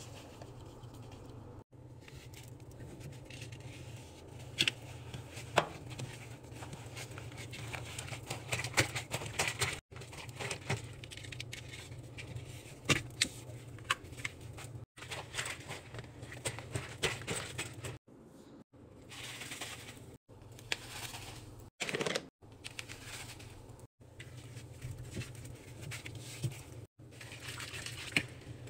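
Powdered laundry detergent pouring into a top-loading washer drum, then a hand rubbing and squishing wet, sudsy clothes around the agitator: irregular crackling, crinkling and scraping. The sound breaks off in several brief gaps.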